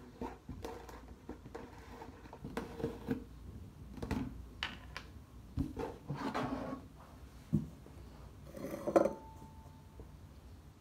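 Handling noises as a glue bottle and slime-making supplies are picked up and set down on a table: scattered small clicks, taps and knocks, with a brief louder clatter about nine seconds in.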